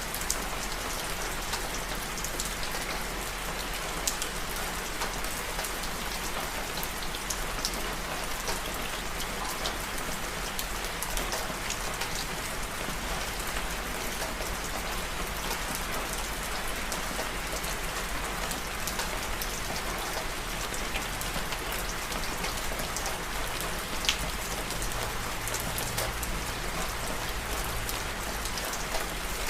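Steady rain falling, with many individual drops pattering on a surface. One drop lands with a sharper tick about 24 seconds in.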